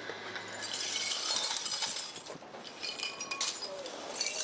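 Broken glass and debris clinking and scraping in several short bursts as the shards are swept up with a broom, with a sharp clink near the end.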